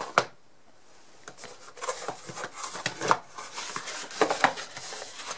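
A small cardboard box being handled and opened: irregular rubbing and scraping, with a few light clicks.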